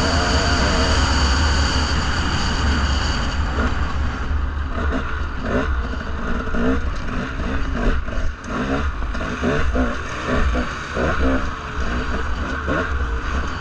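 Dirt bike engine under way, running fairly steady at first and then revving up and down again and again from about four seconds in, with a steady low rumble underneath.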